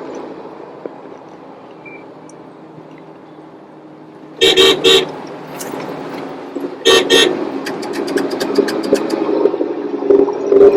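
Road traffic with vehicle horns honking: two short toots about four and a half seconds in and another burst about seven seconds in, over steady engine noise.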